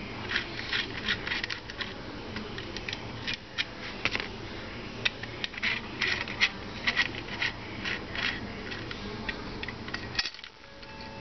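Small irregular metallic clicks and ticks as a 3 mm hex key works the screw holding a jigsaw's steel base plate, with the key and plate being handled.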